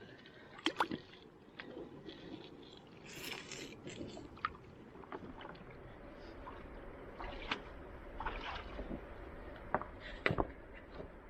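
Irregular sharp clacks of stones knocking together and brief swishes of gravel and water sloshing as river gravel is dug and worked by hand.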